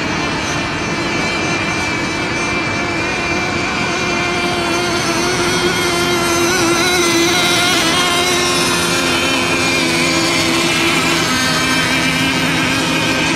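Radio-controlled racing boats running flat out, their motors giving a steady high-pitched whine made of several overlapping pitches, getting a little louder about halfway through.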